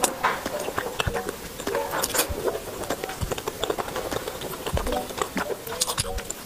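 Close-miked slurping and chewing of thick, chewy tteokbokki noodles in spicy sauce: wet mouth clicks and short squeaky sucking sounds packed closely together.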